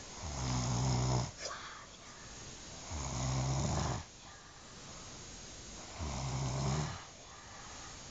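A person snoring: three deep, rumbling snores about three seconds apart, with quieter breathing between them.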